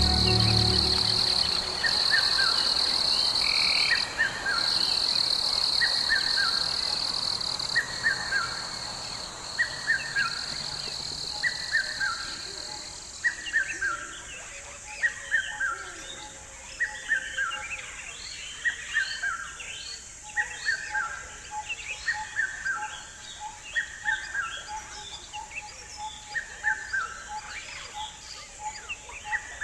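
Tropical forest ambience: a steady high insect drone that cuts off about halfway through, over a short, falling call repeated every couple of seconds. After the drone stops, many quick chirps and a faint pulsing note fill in.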